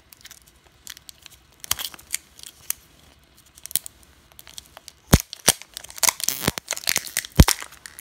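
Thin plastic wrapper being torn and peeled off a plastic toy capsule ball: crinkling and crackling, sparse at first and busier in the second half. Two loud, sharp plastic snaps come near the end, the loudest at about seven and a half seconds.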